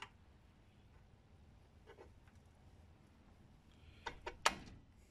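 Quiet handling of metal engine parts: a click at the start, a faint tick about two seconds in, then a few sharp metallic clicks just past four seconds in, the last the loudest, as a Suzuki RM250 shift drum is fitted into its aluminium crankcase half among the transmission gears and shift forks.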